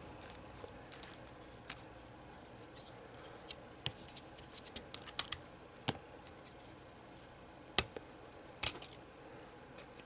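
Scattered sharp clicks and snaps of hard plastic model-kit pieces being handled and fitted together, about eight in all, two of them close together about halfway through.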